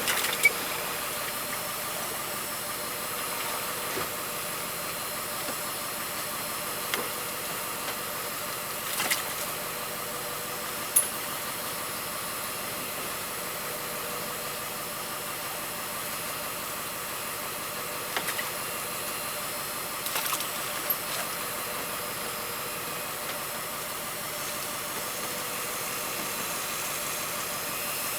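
Fishing boat's engine running steadily under a constant hiss, with a few short light knocks now and then.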